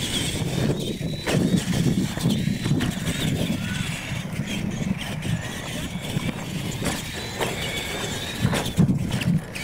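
Radio-controlled electric monster trucks (Tamiya Clod Buster type) racing over dirt: a high, wavering motor and gear whine over a low rumble, the whine stopping about a second before the end.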